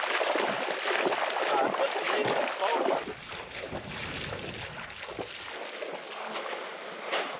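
Water sloshing and splashing, louder for about the first three seconds and then quieter.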